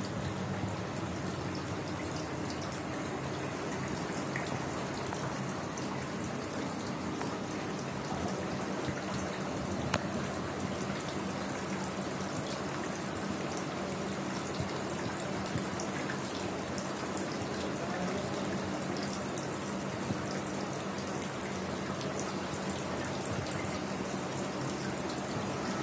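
Steady trickling and dripping water with a low hum underneath.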